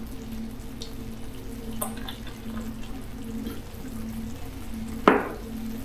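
Beer being poured, over a steady low hum, with one sharp clack about five seconds in.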